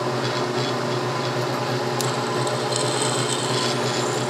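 Milling machine running as a drill press, its motor and spindle humming steadily while the bit drills a small soldered sheet-metal piece held in a vise; a higher scraping cutting sound joins in from about three seconds in.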